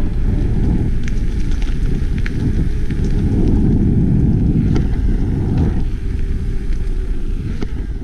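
Wind rushing over the camera microphone as a Commencal Meta AM mountain bike rolls fast along a paved path, a steady low rumble with a handful of sharp clicks from the bike over bumps.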